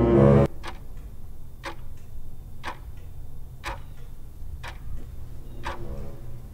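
A clock ticking steadily, about one tick-tock a second, a stronger tick followed by a weaker one. It comes just after a swelling musical tone that cuts off about half a second in.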